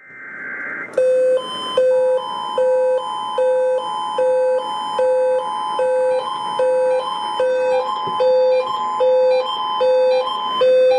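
Over a radio, the end of an Emergency Alert System data burst, a raspy screech in the first second, then the two-tone EAS attention signal held steady for about nine seconds and stopping just before the end, announcing a Child Abduction Emergency (Amber Alert). A separate alarm beeps about every 0.7 s through it.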